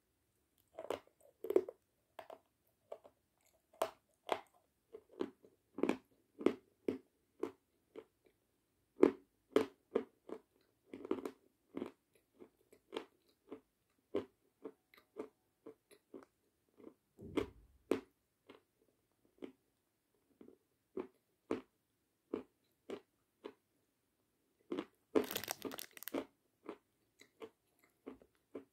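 Kramatorsk edible chalk crunching as it is bitten and chewed, with crisp, dry crunches coming irregularly about once or twice a second. A denser, louder burst of crunching comes near the end.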